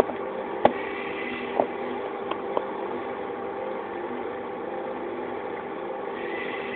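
A machine runs with a steady hum. There is one sharp knock about half a second in, and a few lighter knocks follow over the next two seconds.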